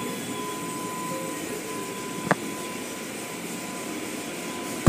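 Automatic car wash machinery running: spinning brushes and water spray making a steady roar, with a faint steady whine over it and a single knock about two seconds in.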